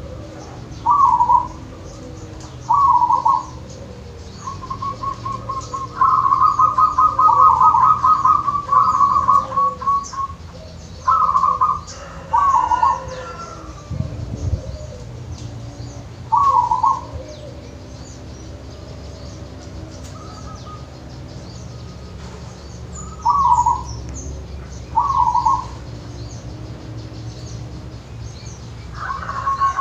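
Zebra dove (perkutut) cooing: short calls repeated every few seconds, with a longer run of rapid notes about a third of the way in, over a steady low hum.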